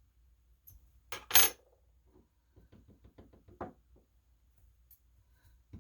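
Small metal lock parts and tools knocking and clicking against a hard surface while pins are worked out of a Master Lock padlock core. A sharp double knock about a second in is followed by a run of light ticks and one more click near the end.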